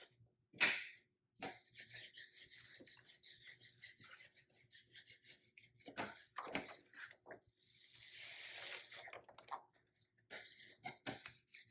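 Vinyl window decal being peeled from its backing and rubbed down against the glass: irregular scraping and rubbing, with a longer hiss of peeling about eight seconds in.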